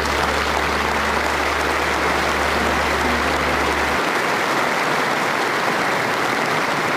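Audience applauding steadily, with a low hum underneath that cuts off about four seconds in.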